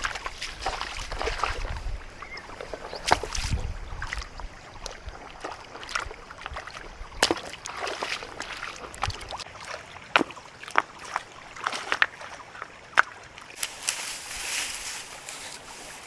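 Shallow stream water splashing and sloshing as a person wades and shifts river stones in it, with many sharp clacks of stones knocking together.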